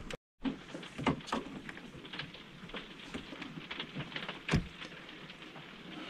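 Scattered light clicks, taps and rustling from hands working the plastic dashboard trim and gauge cluster loose, with a sharper click about four and a half seconds in.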